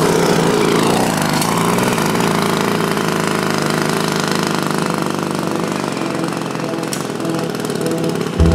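Small two-stroke bicycle-kit engine running steadily as the motorized bicycle rides along, growing slightly fainter toward the end.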